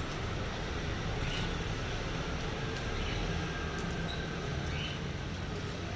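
Steady low rumble of street traffic, with a few faint short high-pitched squeaks scattered through it.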